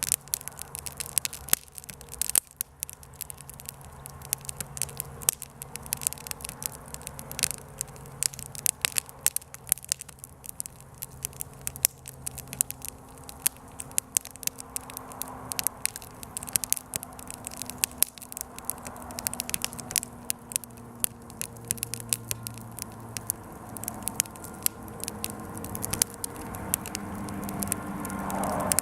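Small campfire crackling, with frequent irregular sharp pops and snaps.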